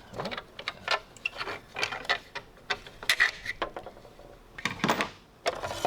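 Irregular metallic clicks, knocks and short scrapes as the cover and parts of a belt sander are handled by hand.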